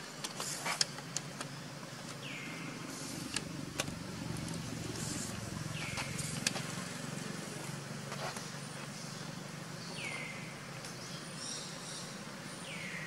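Outdoor ambience: a steady low rumble, with a short high sliding call about every four seconds, four times in all, and a few faint clicks.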